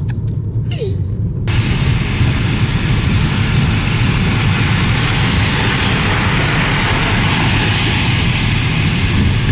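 Steady low engine rumble of a ferry. About a second and a half in, a loud, even rushing noise of wind and rain sets in suddenly on top of it.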